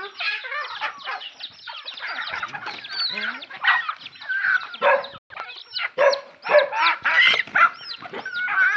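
A flock of chickens calling over one another: clucking mixed with many short, high, repeated peeps.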